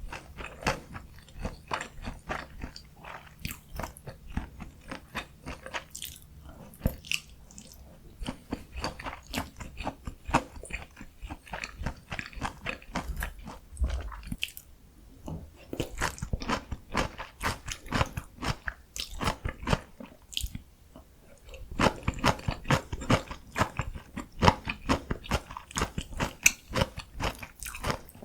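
Close-miked eating sounds: bites into breaded, fried pork cutlet with kimchi and melted cheese, with crisp crunching and chewing in quick irregular crackles, pausing briefly twice.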